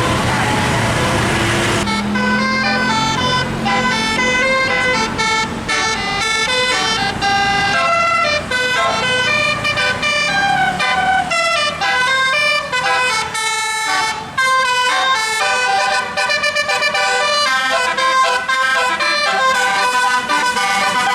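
Tour bus 'telolet' multi-tone musical air horn (Basuri type) playing a long, fast melody of stepping notes, starting about two seconds in. Road and engine noise come before it.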